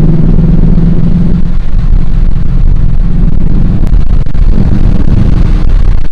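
Dodge Charger R/T's 5.7-litre HEMI V8 running loud while driving, a steady low drone that eases about a second and a half in, with wind buffeting the microphone.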